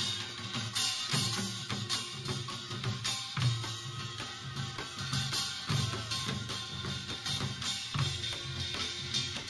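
Korean farmers' music (pungmul) played live by a traditional percussion band: drums struck in a steady driving beat with bright metallic gong hits over them.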